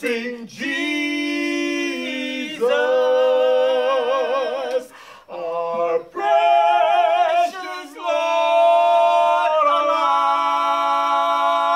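A man and a woman singing together a cappella, no instruments: long held notes with vibrato, broken by short pauses about five and six seconds in, and a last long note that steps up in pitch near the end.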